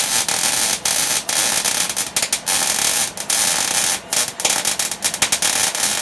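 110-volt wire-feed MIG welder with shielding gas laying a weld on steel box tubing: the arc gives a continuous crackling hiss, broken by short gaps several times.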